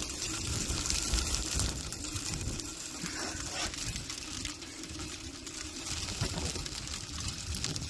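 Small snow pellets falling and pattering on the motorhome and the ground: a steady fine hiss of many tiny ticks.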